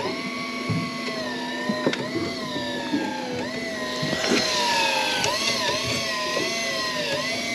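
Electric fishing reel's motor whining as it winds against a hooked halibut, its pitch dipping and recovering as the fish pulls on the line. A few sharp knocks sound over it.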